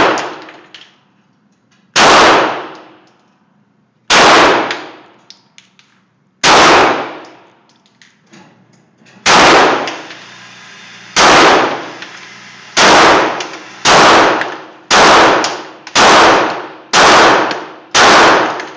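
Ruger SR9 9mm pistol firing eleven shots, each ringing on in the echo of an indoor concrete range. The first few come about two seconds apart, then they quicken to roughly one a second.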